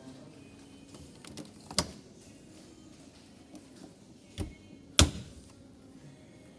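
Three sharp clunks, the loudest about five seconds in, over a low steady background.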